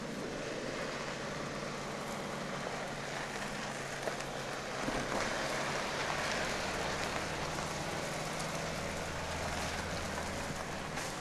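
BMW X3 SUV driving slowly over a gravel forest track: a steady hiss of tyres and outdoor air with a low engine hum that grows a little louder about halfway through.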